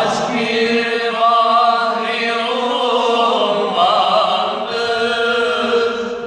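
A group of men singing a Turkish religious hymn (ilahi) unaccompanied, in long held notes with wavering melodic ornaments.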